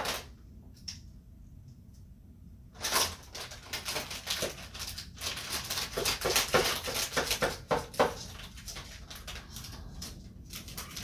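Plastic packaging being opened and handled: irregular crinkling rustles and sharp clicks that start about three seconds in, after a short quiet stretch.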